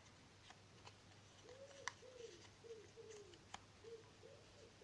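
A dove cooing faintly: a run of short arched and falling notes starting about a second and a half in. Under it, a few soft ticks of a paper slip being folded by hand, and a low steady hum.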